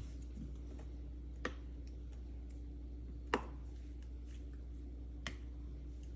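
Three light taps about two seconds apart, the middle one loudest with a short ring, over a steady low hum.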